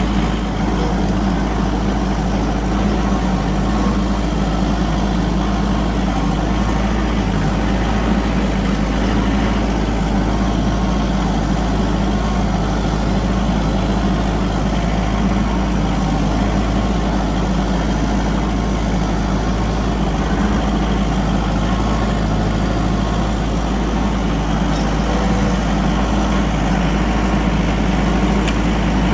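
Vehicle engine running steadily with a constant low hum, close by.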